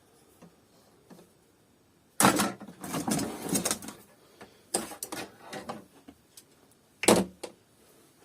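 Hard plastic parts of a vacuum cleaner being handled as it is taken apart: a rattling, clattering stretch, then scattered clicks and a sharp knock near the end.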